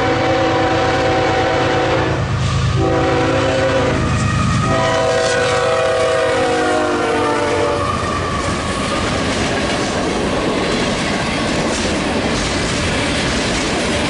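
Freight train led by an ES44AC GEVO locomotive sounding its horn in repeated blasts for a grade crossing. The last long blast drops slightly in pitch as the locomotives pass, about eight seconds in. The horn is followed by the steady rolling of hopper and tank cars, with wheels clicking over the rail joints.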